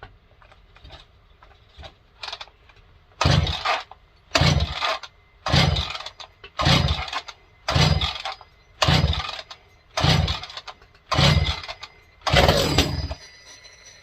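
Ported Echo CS-670 two-stroke chainsaw being pull-started: the recoil starter cord is yanked hard nine times, about once a second, with the engine cranking over but not yet running. The carburettor has not been primed.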